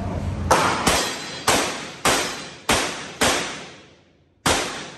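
Revolver fired seven times in a stage string. The first two shots come quickly, the next four about one every half second, and the last after a pause of over a second. Each shot rings with a long echo off the walls and ceiling baffles of an indoor range.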